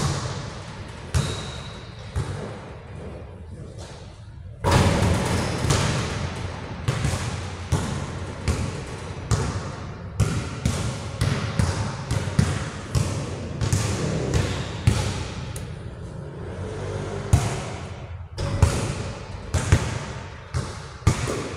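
A basketball bouncing on a hard indoor court floor, many sharp thuds with a short echo after each, at times a steady dribble of about two bounces a second.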